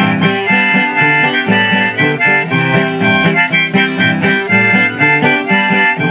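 Background music: an instrumental break in a song, a harmonica melody over guitar.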